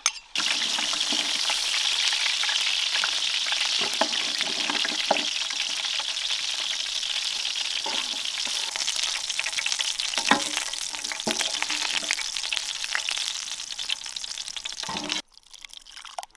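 Food sizzling as it fries in hot oil in a pan, stirred with a utensil that knocks against the pan now and then. The sizzle starts suddenly and cuts off suddenly near the end.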